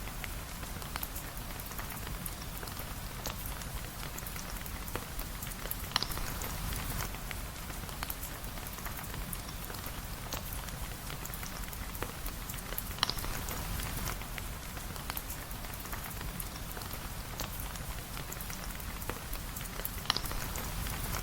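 Steady rain falling, a dense patter full of fine ticks over a low rumble, with a sharper click about every seven seconds, three in all.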